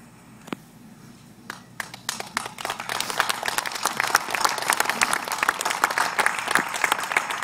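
Audience applauding: after a brief lull with a couple of single claps, the clapping starts about two seconds in and builds into steady applause.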